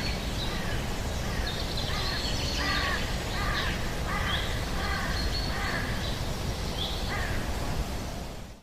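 Birds calling outdoors: a dozen or so short, arched calls, some in pairs, over a steady low background hum of outdoor noise.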